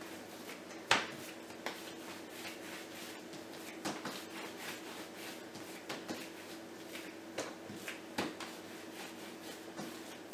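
Hands rolling bread dough into logs on a baking mat over a wooden table: soft rubbing with a few scattered knocks, the sharpest about a second in, over a steady faint hum.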